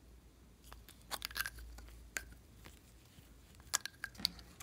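Plastic cases of ice-cream-cone-shaped novelty lipsticks being handled and uncapped: a scattered run of sharp clicks and snaps, clustered about a second in, around two seconds and again near the end.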